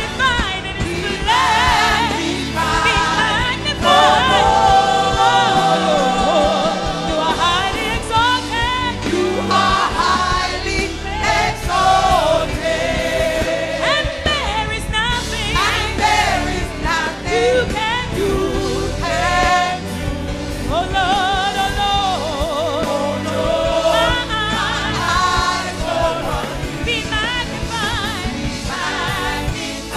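Gospel worship music: a choir and congregation singing with vibrato over accompanying instruments.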